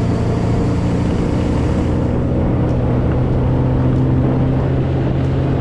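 Boat's outboard motor running at a steady pitch while underway, over a steady rushing noise.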